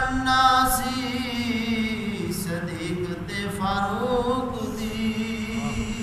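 A man's voice chanting a Punjabi naat without accompaniment. He holds long, wavering notes that slide down and then back up in pitch, with a couple of brief pauses.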